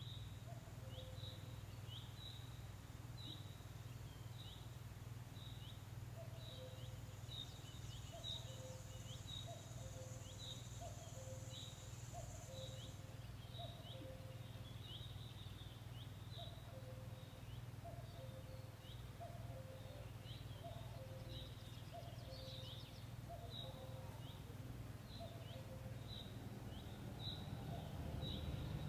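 Faint outdoor bird chorus: a bird repeats a short, falling high chirp one or two times a second, while a lower two-note call repeats about once a second over a steady low hum.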